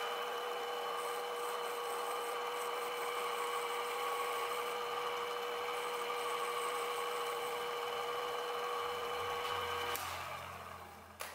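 Small bench lathe motor running steadily with a whine, while a fine file rubs against the spinning metal pin. About ten seconds in the motor is switched off and the sound dies away.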